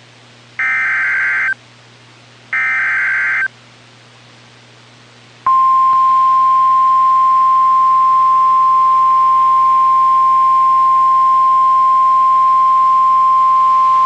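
Emergency Alert System SAME header data tones on NOAA Weather Radio: two buzzing bursts of about a second each, a second apart, repeating the encoded alert header. A couple of seconds later comes the weather radio's warning alarm, a single steady tone held to the end, which signals a severe thunderstorm warning.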